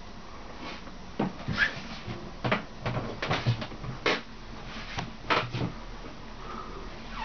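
A run of irregular wooden knocks and clunks, about a dozen over four or five seconds, as a wooden cabin door and its joinery are handled and bumped.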